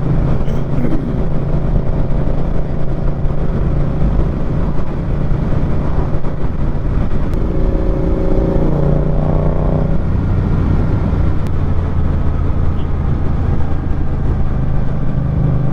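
Motorcycle engine running at steady cruising speed with wind rush, heard from on the moving bike. Between about eight and ten seconds in, the engine note shifts in pitch.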